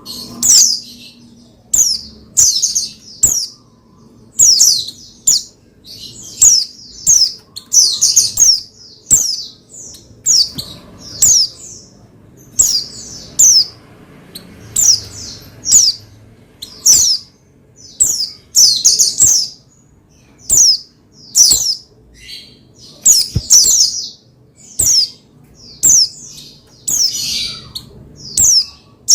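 White-eye (pleci) calling: short, high chirps repeated about once a second, some in quick pairs.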